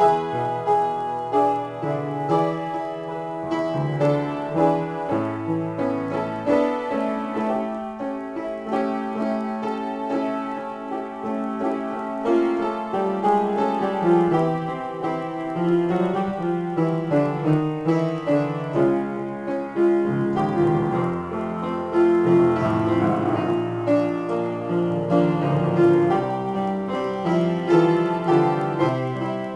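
Piano played as a free improvisation: a dense, unbroken stream of overlapping notes and chords across the keyboard.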